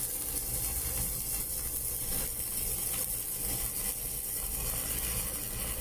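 Stick-welding arc from a Sasuke LCD 220S inverter welder burning steadily on a 3.2 mm electrode, a steady hiss with no breaks.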